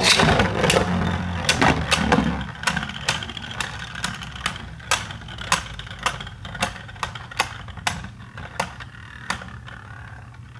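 Beyblade spinning tops clashing in a plastic stadium: a dense whirring rush at the start, then a long run of sharp irregular clicks and knocks as the tops hit each other and the stadium wall, slowly getting quieter as they lose spin.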